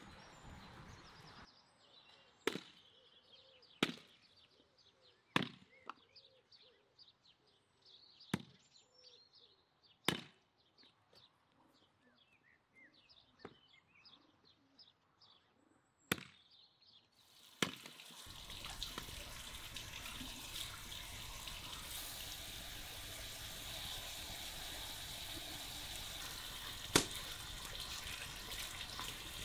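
A hatchet splitting wood on a chopping stump: about seven sharp chops a second or two apart, with small birds chirping between. About 18 seconds in it changes to a kitchen tap running steadily into a sink while a vegetable is washed under it.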